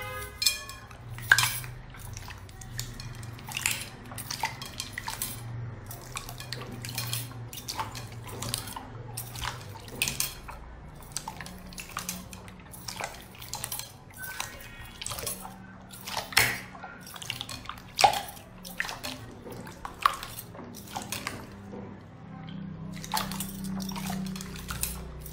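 Hands squishing and kneading clear slime, making a steady stream of irregular wet clicks and pops.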